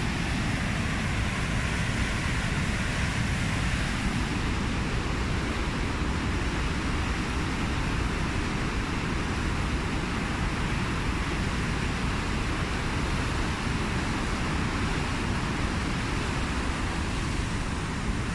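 Steady rush of fast, churning white water pouring down a steep concrete channel at a dam, an even, unbroken noise.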